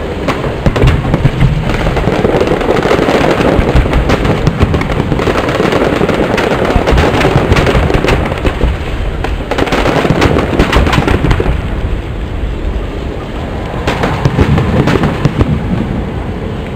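Fireworks display: aerial shells bursting in a rapid, overlapping string of bangs over a continuous rumble, with no break.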